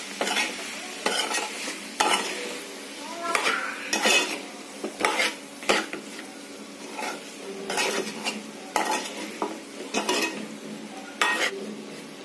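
Ladle stirring and scraping masala-coated chicken pieces around a metal pan, a stroke about once a second at an uneven pace, over a steady sizzle of the chicken frying on low flame with a little water sprinkled in so it doesn't stick.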